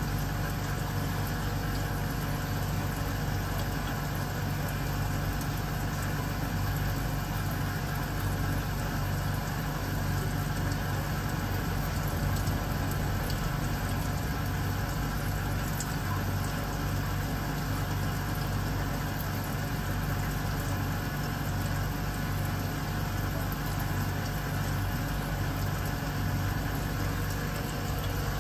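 A steady low machine hum with a faint higher whine, unchanging in level, like a motor running.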